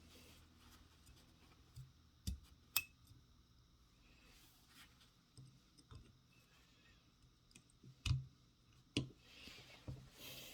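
Small metal parts of a 3/8-inch ratchet clicking and tapping as they are handled and fitted back together, a handful of sharp separate clicks spread out with quiet between.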